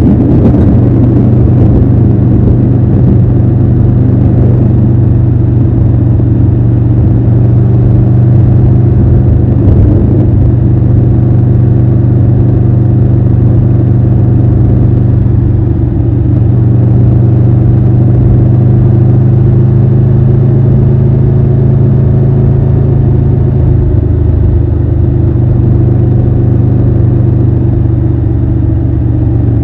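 Triumph Tiger 1200 Rally Pro's inline three-cylinder engine running at steady, low revs, with a gentle rise and fall in pitch in the second half.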